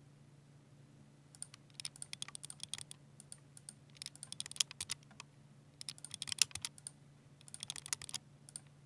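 Fast typing on a Ducky 60% mechanical keyboard with silver switches: after about a second of quiet, four quick runs of keystrokes come with short pauses between them.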